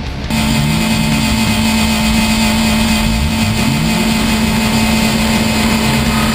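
Demolition derby cars' engines running loud, several revving up and down over a steady drone; the sound cuts in abruptly a moment in.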